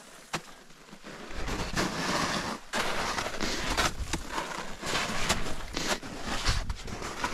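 Mountaineering boots crunching and punching down through snow while postholing: a string of noisy crunches about once a second, starting about a second in.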